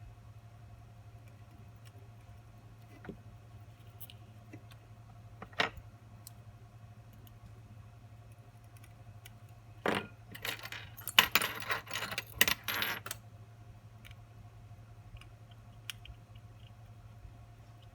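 Small metal watchmaker's tools and movement parts clicking at the bench, with a sharper click about five seconds in and a burst of metallic clinking and rattling about ten to thirteen seconds in. A steady low hum runs underneath.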